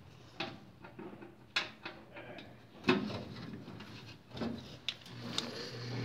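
Scattered light clicks and taps of small metal parts being handled as the furnace's flame sensor is taken out. A low hum starts to rise near the end.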